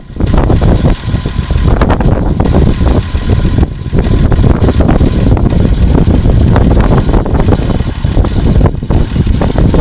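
Tractor pulling a trailed potato harvester, its engine and machinery running steadily, with a steady high whine and heavy wind buffeting on the microphone.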